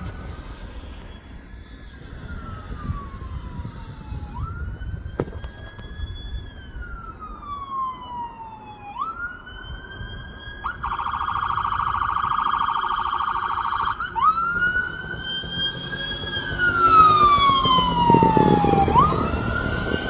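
Emergency vehicle's electronic siren on a slow wail, the pitch rising and falling every four to five seconds, switching to a fast warble for about three seconds midway before going back to the wail. A low rumble swells near the end.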